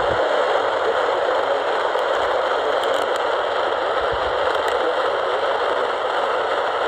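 Steady hiss of radio static from a receiver tuned to a weak or empty weather-radio channel, with no broadcast coming through.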